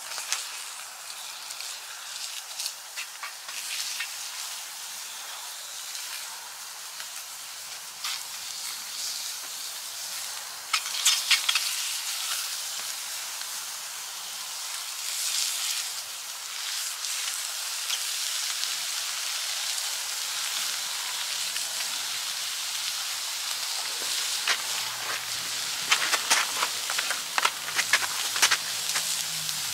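Skirt steak sizzling in skillets over an open log fire, a steady hiss with scattered sharp crackles from the frying fat and burning wood. The crackles come thicker near the end.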